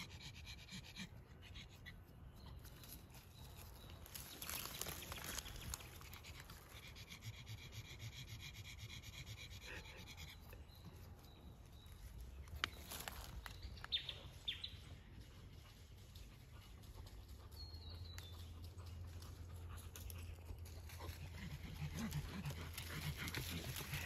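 Faint rustling with a few sharp clicks; over the last few seconds a dog's panting grows louder as it closes in on the hider.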